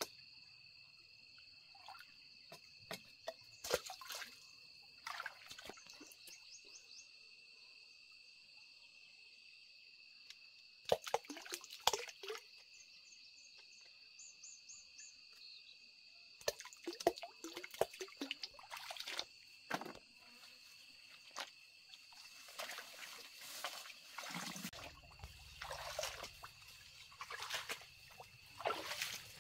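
A steady, high insect drone, broken again and again by short rustles and crackles of leaves and twigs as figs are picked from the branches and someone pushes through undergrowth. A low rumble joins about three-quarters of the way through.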